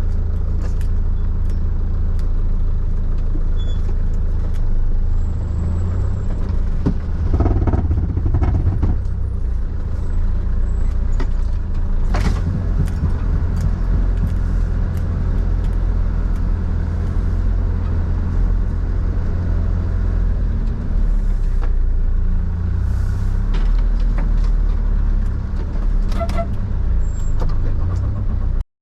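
Mitsubishi Canter 4x4 truck driving over a rough dirt track: a loud, steady low rumble from the engine and drivetrain, with scattered knocks and rattles from the body as it goes over bumps.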